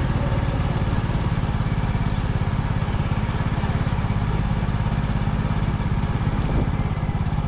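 Motorbike engine running at a steady cruise as it rides along, with a rapid even pulse and a hiss of road and wind noise.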